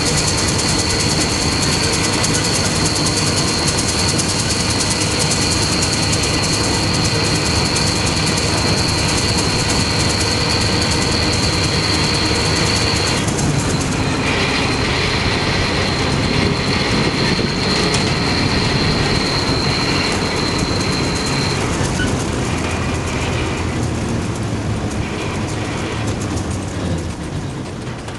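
Pull-type John Deere 360 combine running while threshing, its threshing machinery mixed with the towing tractor's diesel engine, heard up close from the grain tank. A steady high whine drops out about halfway through, comes back a second later, and stops about three quarters of the way in.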